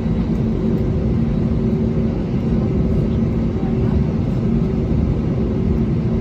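Steady rumble and hum heard inside the cabin of an Airbus A320 with its IAE V2500 engines running, with a few steady low tones held throughout.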